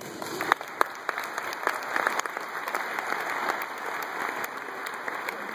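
Large audience applauding, a dense patter of hand claps with a few sharp, loud claps close by in the first second.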